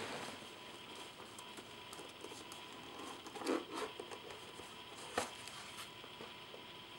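Faint handling noises: light rustling with a few soft knocks and clicks, the loudest about three and a half seconds in and a sharper click just after five seconds.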